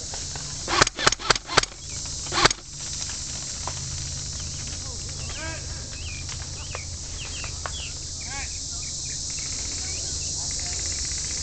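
A quick string of airsoft rifle shots, about five sharp cracks in under a second and one more about a second later. Then a steady insect drone with scattered short high chirps.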